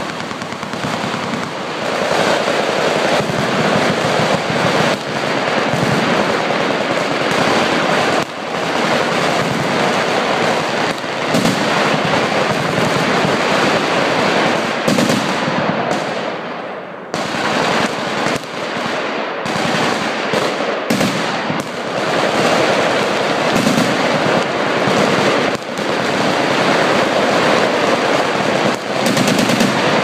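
Several machine guns on a firing line firing long, overlapping bursts of automatic fire, making a near-continuous stream of shots. The fire eases briefly about halfway through, then resumes just as densely.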